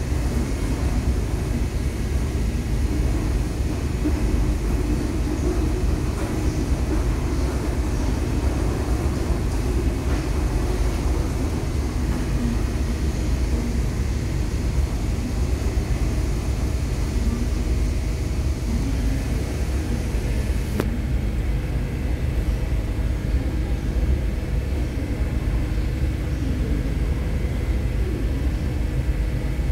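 Steady low engine rumble with a constant hum of several steady tones, unchanging throughout.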